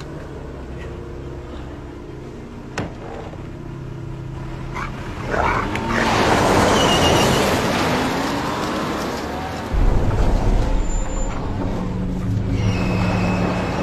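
Car engine running, growing louder and noisier about five seconds in, with a strong deep low rumble from about ten seconds in.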